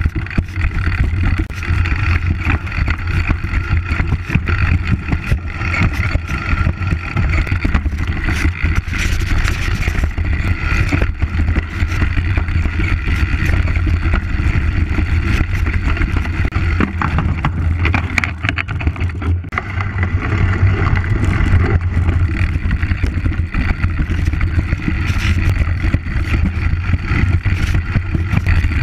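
Mountain bike ridden fast down a rocky forest trail: a steady rumble of tyres and wind on the microphone, broken by frequent knocks and rattles as the bike hits rocks and roots.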